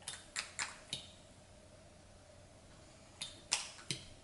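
Short, squishy clicks from a bottle of makeup foundation being handled and dispensed: four quick ones in the first second, then three more about three seconds in.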